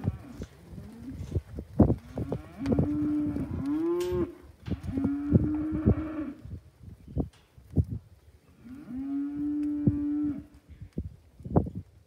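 Cattle in the yards mooing: four long, drawn-out calls at a fairly even pitch, two close together near the start and one more past the middle. Short sharp knocks and clicks are scattered in between.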